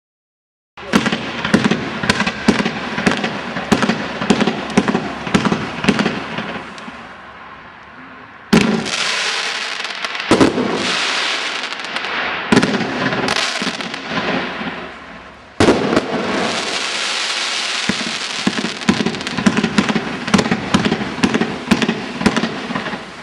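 A 50-shot fan-pattern fireworks cake firing. About a second in, a quick run of sharp launch and burst pops sets in and dies away after some six seconds. Then a dense crackle of crackling willow stars begins abruptly, twice, with more pops over it, fading near the end.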